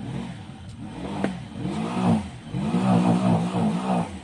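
An engine revving several times, its pitch rising and falling with each rev.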